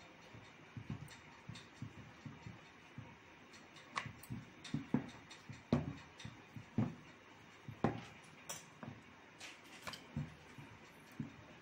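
Wooden rolling pin pushed back and forth over a thin sheet of maida dough on a round rolling board. It makes irregular soft thumps and knocks, some louder from about four seconds in.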